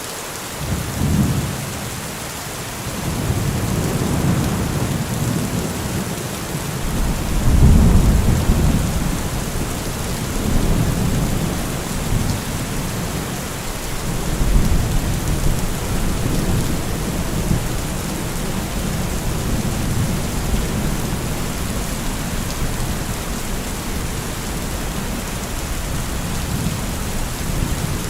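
Steady heavy rain with rolling thunder: a thunderclap about a second in, then several long low rumbles, the loudest around eight seconds in, fading to a steadier rumble under the rain.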